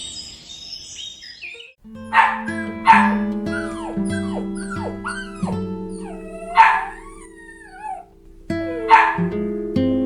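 A dog barking and yelping over background acoustic guitar music, with sharp barks about two, three, six and a half, and nine seconds in, and shorter sliding yelps between them. A high chirping sound fades out in the first two seconds.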